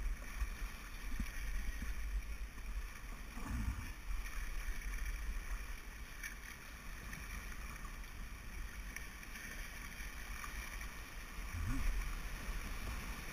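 Rushing river water and small rapids around a moving canoe, with wind buffeting the microphone in a low rumble.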